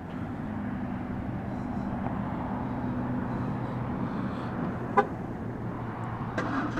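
2013 Ford Taurus SHO's twin-turbo 3.5-litre EcoBoost V6 idling steadily after being remote-started, with one short horn chirp about five seconds in.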